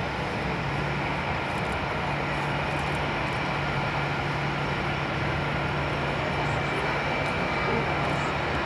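Jet engines of a taxiing Airbus A320-family airliner running at low taxi power: a steady rumble with a faint high whine held throughout.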